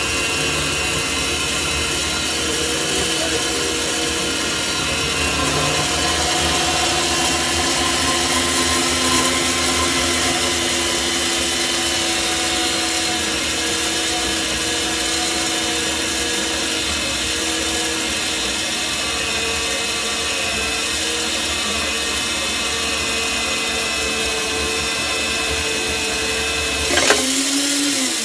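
Parkside portable metal band saw running and cutting slowly through rectangular steel tubing a couple of millimetres thick under light feed pressure: a steady machine whine with several held tones. A sharp click sounds about a second before the end.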